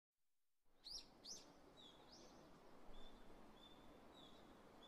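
Faint outdoor ambience with small birds chirping, starting after a moment of silence: a few quick sweeping chirps about a second in, then short high chirps repeated every half second or so over a soft hiss.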